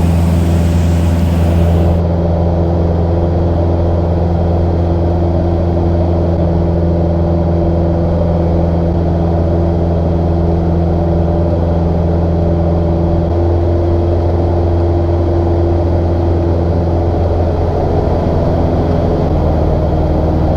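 Cessna 150's four-cylinder Continental O-200 engine and propeller droning steadily, with a hiss over it that cuts off about two seconds in.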